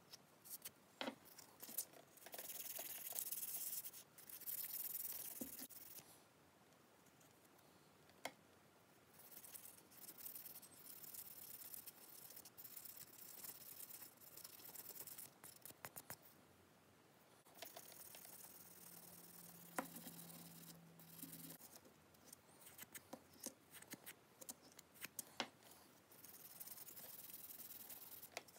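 Faint rubbing and scratching of a stainless steel ring being polished by hand with abrasive paste on a small pad, in stretches of a few seconds, with scattered light clicks as the ring and pad are handled.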